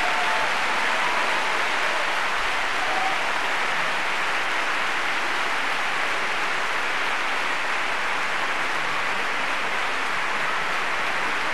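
Large theatre audience applauding: a steady, dense wash of clapping for the dancers' bows.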